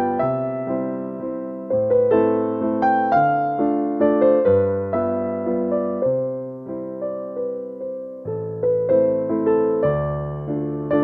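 Slow, gentle solo piano music: soft melody notes struck a few times a second over sustained chords, with the bass note changing every two seconds or so.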